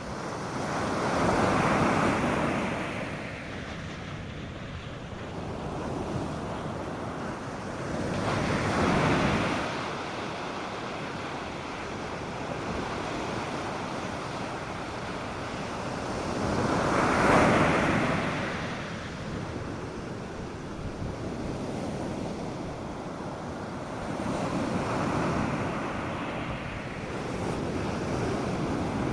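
North Sea surf breaking on a sandy beach: waves crash every several seconds, five times, the loudest about two-thirds of the way through, over a steady wash of water and light wind on the microphone.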